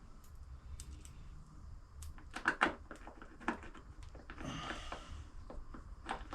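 Scattered light clicks and taps of bolts, press washers and plastic panel being handled and fitted onto a dirt bike's radiator shroud, with a few sharper knocks about two and a half seconds in.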